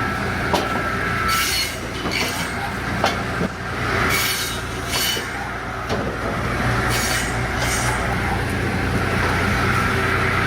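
Binderberger conveyor-belt circular saw, driven from a Deutz 5006 tractor's PTO, running over a steady tractor-engine hum. The blade gives a hissing, squealing rasp each time it goes through wood, several times a couple of seconds apart.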